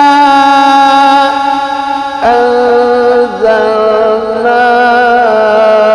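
Male Quran reciter in melodic mujawwad recitation, drawing out one long ornamented vowel on the word "innā". His voice steps to a new pitch about two seconds in and shifts again twice after.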